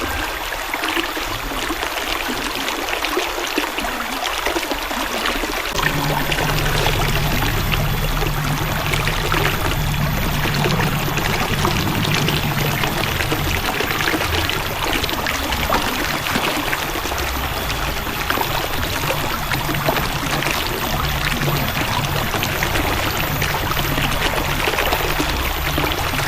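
River water flowing with a steady rushing sound. A low rumble joins about six seconds in and continues.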